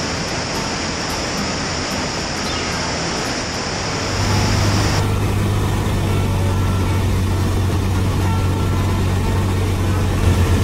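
Wind rushing over an externally mounted camera with a light aircraft's engine behind it. About four seconds in, this gives way to the steady low drone of a Cessna 152's four-cylinder Lycoming engine heard from inside the cockpit on approach to land, which pulses briefly near the end.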